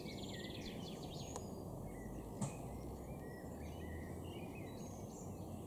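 Steady outdoor background noise with small birds chirping and trilling now and then, and a single short click about two and a half seconds in.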